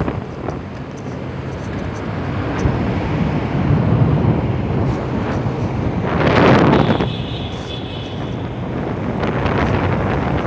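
Motorcycle engine running on the move inside a road tunnel, with wind noise buffeting the microphone. A louder rush of noise comes about six and a half seconds in.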